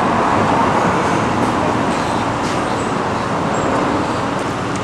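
Steady road traffic noise from vehicles running close by on the street.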